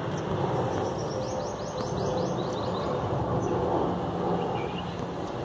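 Steady rumble of a passenger jet flying overhead. A bird gives a quick run of descending chirps between one and three seconds in.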